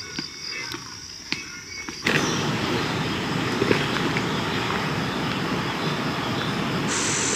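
Insects chirping in a high steady buzz with a few small chirps, then an abrupt change about two seconds in to the steady loud rush of flowing water. A higher steady hiss joins near the end.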